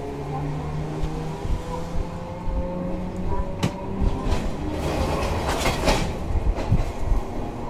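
Toyohashi Railway 3200-series tram heard from on board: a whine rising in pitch as it picks up speed, then wheels clicking and knocking over rail joints with a rumbling clatter from about halfway through.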